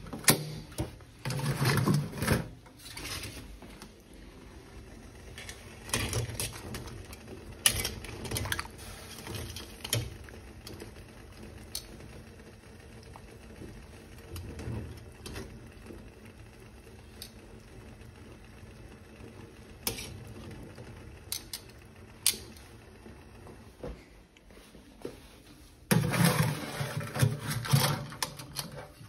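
Metal kitchen tongs clicking, scraping and knocking against a stainless steel sink, a steel pot and the shells of live Dungeness crabs, with scattered clatters over a low steady hum and a louder run of clattering near the end.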